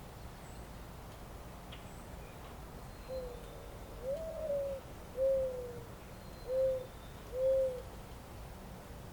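A dove cooing: five low, hollow coos over about five seconds, a short soft one, then a longer note that rises and falls, then three shorter coos. Faint steady background hiss underneath.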